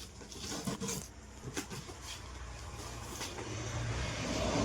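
A few light knocks and rustles of cracker boxes and packaging being handled, then a steady low rumble that grows louder near the end.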